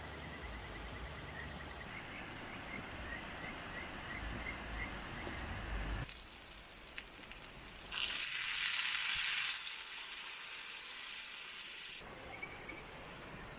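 Food sizzling in a pan over a campfire, heard in several short cuts, with a louder burst of hissing sizzle about eight seconds in that lasts under two seconds.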